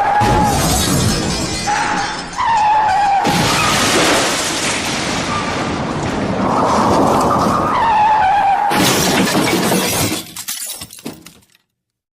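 Crashing, shattering sound effect: loud and noisy in several stretches, each with a brief falling tone, cutting off sharply near the end.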